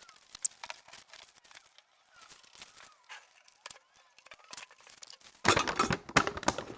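Protective plastic film being peeled off a stainless steel tool chest: faint crackling and ticking at first, then much louder dense crackling and rustling from about five and a half seconds in.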